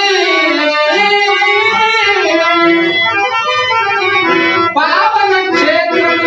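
A Telugu padyam verse sung by a male voice in long, gliding held notes over reed-organ accompaniment. A new phrase begins about five seconds in.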